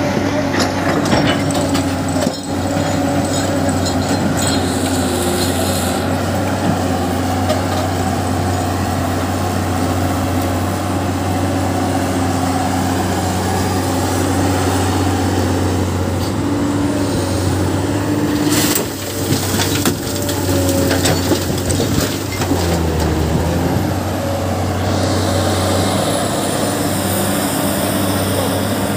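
Heavy diesel construction machinery, excavators and dump trucks, running steadily with a low drone. Now and then there are knocks and clatters, the loudest about two seconds in and about two-thirds of the way through.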